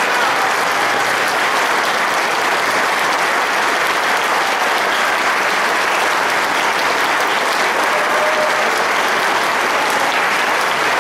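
Audience applauding, a steady, dense clapping that neither builds nor fades.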